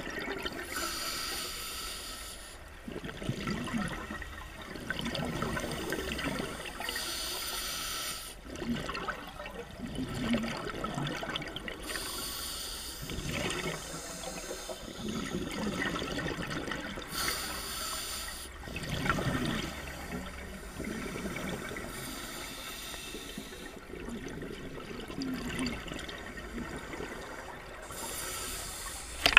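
Scuba diver breathing underwater through a regulator: a hissing inhale every few seconds, with gurgling bursts of exhaled bubbles in between.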